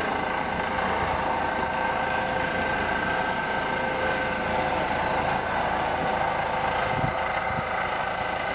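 A motor running steadily: a constant mechanical drone with a few steady whining tones over it.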